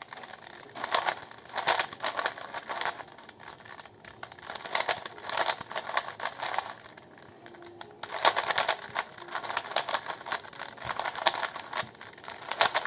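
GAN 356 RS 3x3 speedcube being turned fast during a solve: quick runs of plastic clicking and clattering as the layers snap round, in flurries with short pauses between them.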